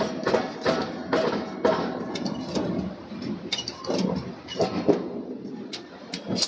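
Irregular metallic clanks and knocks, roughly two a second, over a steady industrial din: steel being handled and struck during forging work.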